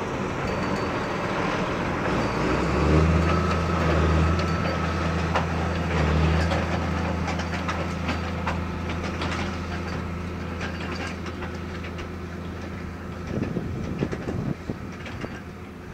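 New Holland 8870 tractor's diesel engine running under load as it pulls a Kinze planter away, with rattling and clanking from the planter. The engine note swells a few seconds in, then slowly fades as the rig moves off.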